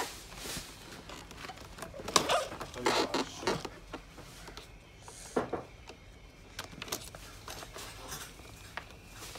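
Plastic snowboard binding straps and a child's snowboard boot being handled, giving irregular rustles, small clicks and knocks, busiest around two to three and a half seconds in, with single knocks near the middle.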